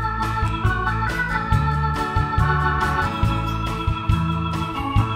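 Band music in an instrumental passage: an organ holding chords over bass and drums with a steady beat.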